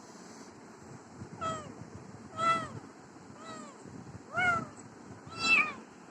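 Cat meowing five times, about once a second, each meow rising and then falling in pitch; the first is fainter than the rest.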